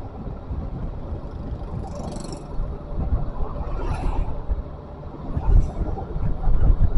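Road travel noise: a vehicle running with wind rumbling on the microphone, and brief hissing bursts about two, four and five and a half seconds in.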